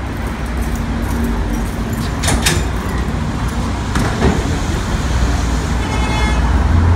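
Steady rumble of street traffic, with a couple of sharp metallic clanks from a metal street gate about two seconds in and a brief high squeak near the end.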